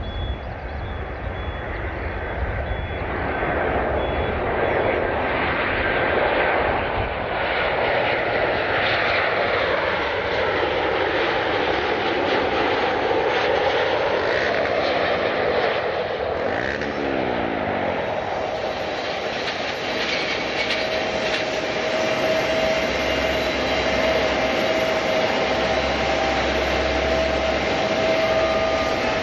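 Jet airliner's engines passing close by. The noise swells over the first few seconds, its tones sweep down and back up as the plane goes past around the middle, and a steady engine whine remains afterwards.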